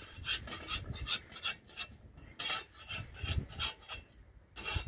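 A spatula scraping across a domed iron saj griddle while turning flatbread over a wood fire: quick rasping strokes, about four a second, with a couple of short pauses.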